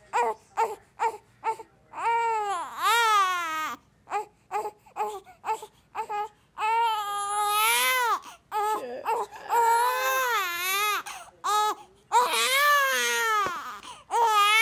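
Young baby boy crying hard: several long, wavering wails of about two seconds each, with bursts of short, choppy cries between them.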